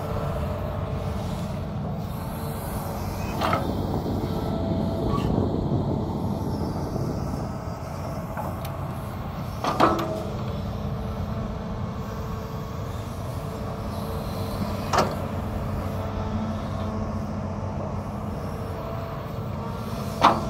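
Hitachi hydraulic excavator's diesel engine running steadily under digging load, swelling louder a few seconds in, with four sharp clanks spread through as the bucket works the mud.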